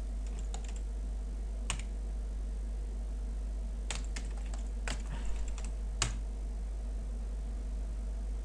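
Keystrokes on a computer keyboard, typed in short irregular spurts: a click about two seconds in, a cluster of keys around four to five seconds in, and a sharper one about six seconds in, over a steady low hum.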